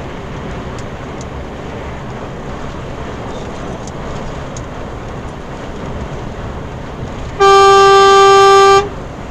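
Steady road and engine noise inside a lorry cab at expressway speed, then a vehicle horn sounds one long blast of about a second and a half near the end, the loudest sound.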